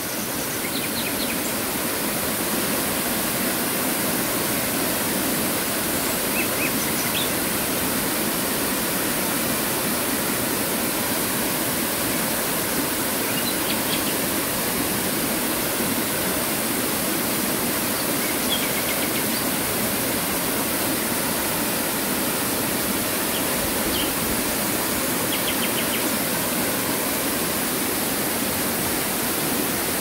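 Tall waterfall plunging into a rock pool: a steady, full rushing roar of falling water, swelling in over the first couple of seconds and then unchanging.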